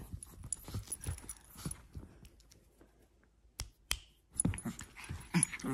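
A small dog's metal collar tag jingling, with scattered clicks and rustles as the dog moves about on a leather recliner while a hand plays with it. About halfway there is a short lull, then two sharp clicks and more jingling and rustling.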